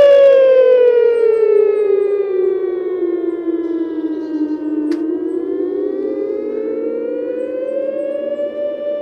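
Super Sirex mechanical siren wailing. Its steady howl slides down in pitch, with a brief click near the bottom, then winds back up to full pitch and holds there. It gets quieter as the pitch falls and louder as it climbs.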